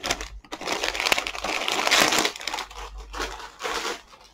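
Plastic postal mailing bag crinkling as it is crumpled and handled. The rustle is dense and loudest about two seconds in, with a further burst of rustling near the end.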